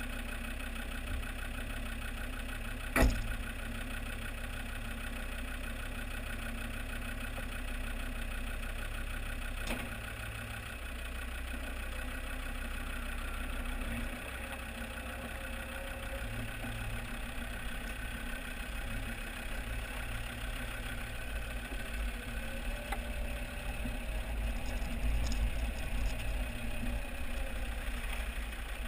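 Land Rover Discovery TD5's five-cylinder turbodiesel engine running steadily as the vehicle drives slowly, heard close to the front wheel, with one sharp knock about three seconds in.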